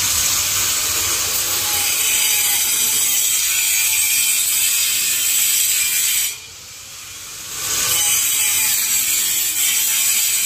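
Handheld electric angle grinder with a cutting disc cutting into the plaster and masonry at the base of a wall, running steadily and loudly. Past the middle the cut breaks off for about a second and a half, then the grinder bites in again.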